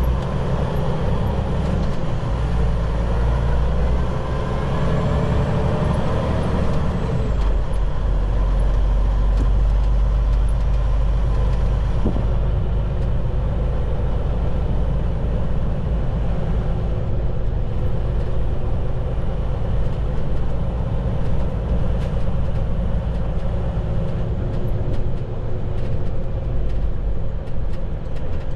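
Semi-truck engine and road noise inside the cab while driving, a steady low rumble. The engine note shifts about seven seconds in.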